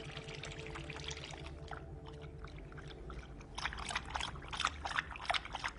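A dog lapping water from a plastic bowl: a run of quick wet laps, about three a second, starting about a second and a half in, over a low steady hum.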